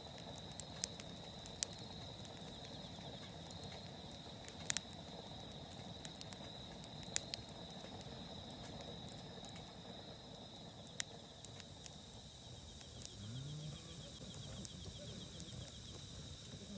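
Wood campfire crackling: irregular sharp pops and snaps of burning wood, a few of them loud, over a faint steady hiss, with a thin steady high tone behind.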